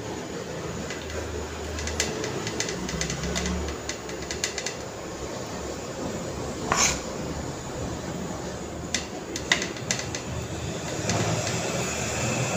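Metal spoon clicking and scraping against a steel plate and bowl while spreading thick biscuit paste over bread: scattered light clicks, with one louder scrape about seven seconds in.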